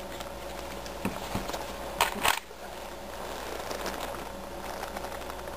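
Handling noise from objects set down on the table close by: a few light knocks about a second in, then two short rustling scrapes about two seconds in, over a steady faint hum.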